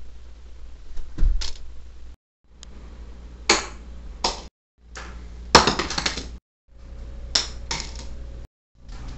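Sharp pops or clacks from a small cup-shaped Ka-Ponk novelty gadget set on the floor, one or two in each of several short spliced clips over a low hum. The loudest pop comes about five and a half seconds in and is followed by a short rattle. The sound drops out briefly between clips.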